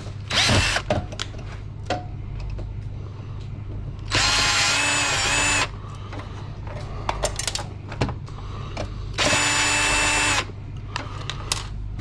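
Power drill used as a screwdriver, run in two short bursts of steady whine, each about a second and a half long, to back out screws. Sharp clicks and knocks sound between the runs.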